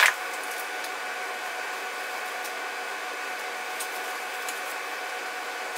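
Steady mechanical whir and hiss with a few constant tones in it, a sharp click at the very start and several faint high clicks later on.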